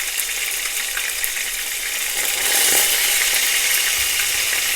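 Chicken balls sizzling as they shallow-fry in hot oil in a pan, with small crackles, while they are being browned. The sizzle grows louder a little past halfway through.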